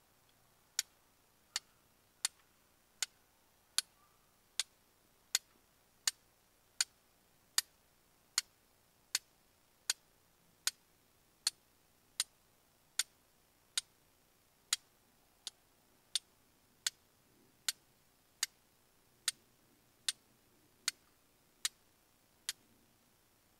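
A hand-held lighter's igniter being clicked over and over to light the campfire: sharp, short clicks, evenly spaced about every three-quarters of a second, nearly thirty in all, stopping shortly before the end.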